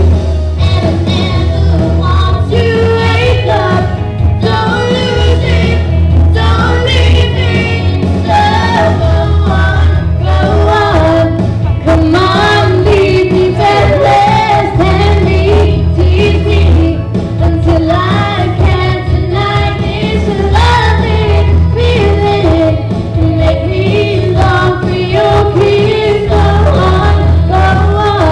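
Two girls singing a pop duet over a loud backing track with a heavy bass line.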